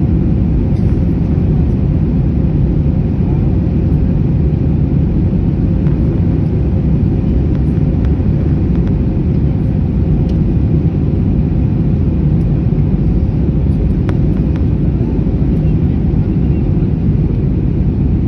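Airbus A321 jet airliner: a steady, even rumble of engines and airflow with a faint steady hum above it, holding level throughout.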